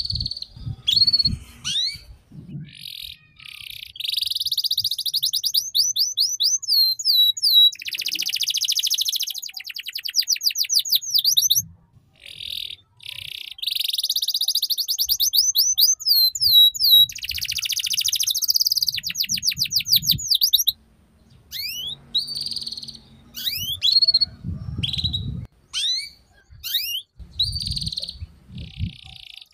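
Domestic canary singing long phrases of rapid rising trill notes and buzzy rolled passages, in bursts broken by short pauses: the fast 'ngeriwik' trilling style used as a tutor song for young canaries. Low rumbles come and go in the background.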